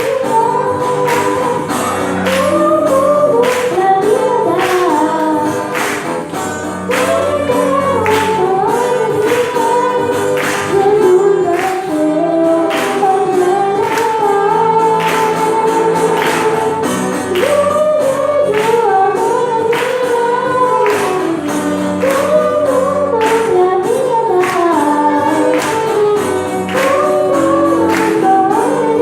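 Singing with instrumental accompaniment over a steady percussive beat.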